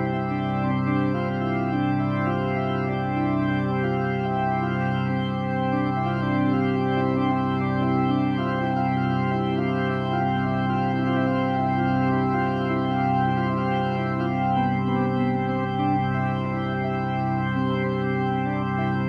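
Background music of long held keyboard chords, steady in level, with a slowly shifting line in the lower middle.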